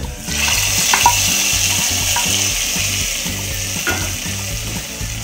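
Hot oil and fried onions tipped from a frying pan into a pot of curry, sizzling sharply as they hit the liquid about a third of a second in, then slowly dying down. A wooden spatula clicks against the pan a couple of times.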